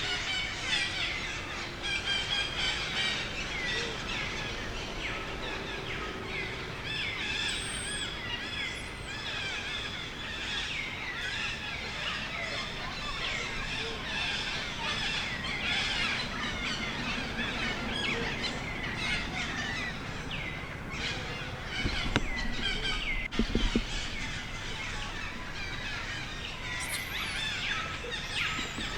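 Dense chirping of many small birds, with a few higher squealing calls and a couple of sharp knocks a little after the middle.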